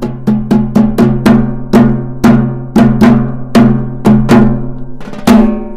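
Background music with a steady drum beat of about four strikes a second over held low notes; the low notes drop out near the end.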